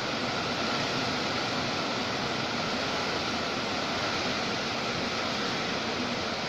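Tropical storm wind and rain making a steady rushing noise, with no breaks or distinct events.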